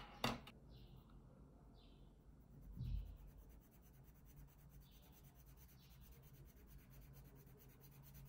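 Faint scratching of a black marker on paper in short strokes, filling in a dark patch. A sharp click sounds just after the start and a dull thump about three seconds in.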